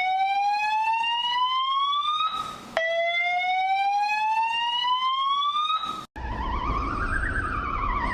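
Electronic alarm tone in a rising 'whoop' pattern: a buzzy tone sweeps upward over about two and a half seconds, twice. About six seconds in it cuts to a different trilling siren tone that slowly rises and then begins to fall, over a hissy background.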